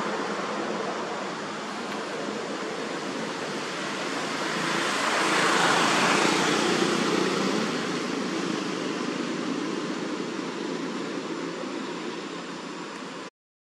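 A steady rushing noise that swells about five seconds in and then slowly eases off. It cuts out for a moment near the end.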